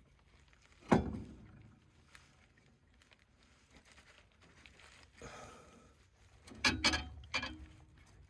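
One sharp knock about a second in, then a quick cluster of clicks and knocks near the end, from parts and tools being handled while new sway bar bushings are fitted.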